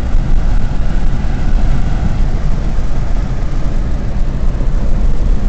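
Fiat Palio's Fire engine and tyre noise heard from inside the cabin while driving, a steady low drone. The engine is running on a custom ECU's first fuel maps, still slightly rich.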